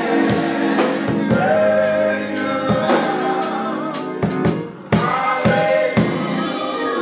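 Live gospel music: singers with a band, sustained organ- or keyboard-like chords and a drum kit striking through it.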